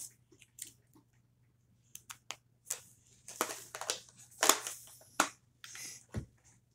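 Scattered tabletop handling noises: a few light clicks, then scraping and rustling of the paper drawing as it is shifted about, ending in a dull thump.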